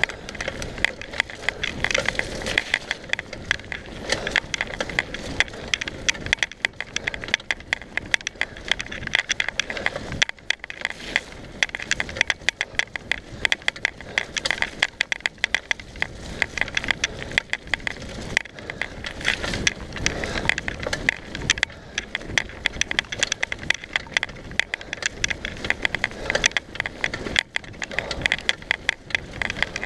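Mountain bike rolling fast over a rough dirt trail: a dense, continuous clatter of rattles and knocks from the bike with tyre noise on the dirt.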